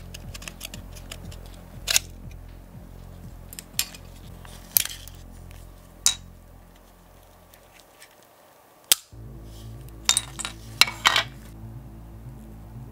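Sharp clicks and clinks of a diecast model car's metal and plastic parts being pried apart and handled: single snaps every second or two, then a quick cluster near the end. Background music runs underneath and cuts out briefly just past the middle.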